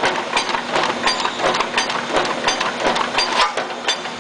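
Sheet-metal elbow machine running with a steady electric motor hum, with frequent, irregular metallic clicks and clacks as its crimping rolls crimp the end of a duct elbow.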